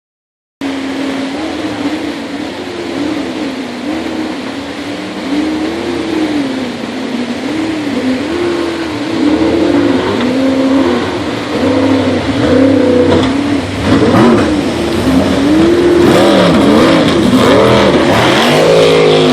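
Racing jet boat engine revving up and down again and again as the boat runs the rapids, growing louder toward the end.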